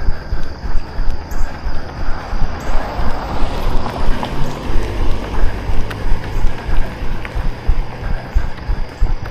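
Running footfalls jolting a carried camera, thudding about three times a second, with wind buffeting the microphone. A passing vehicle's rush swells and fades in the middle.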